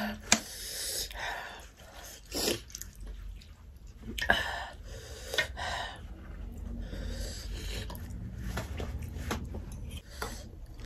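Eating sounds: thukpa noodles slurped and chewed, with sniffs and forks clicking against ceramic bowls several times.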